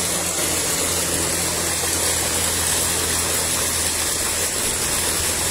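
Tubewell pump running steadily with a low hum, and water gushing from its outlet pipe into the tank.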